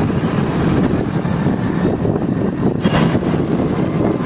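Motorcycle riding noise: wind rushing and buffeting over the microphone, with the bike's engine running underneath.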